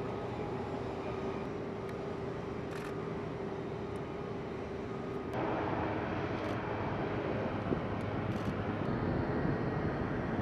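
Steady distant engine drone over outdoor background noise, with one held tone. About five seconds in the background noise steps up abruptly and stays louder.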